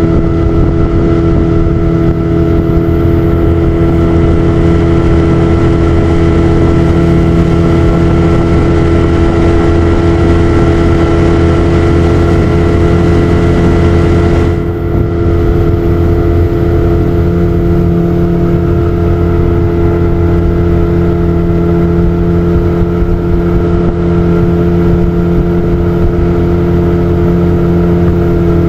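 Small boat's outboard motor running at a steady throttle, a constant drone that holds one pitch throughout, with a brief dip in level about halfway.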